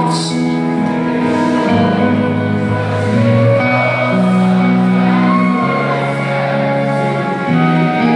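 Live rock band playing an instrumental passage: guitar over long held notes that change chord every second or so, with no vocals.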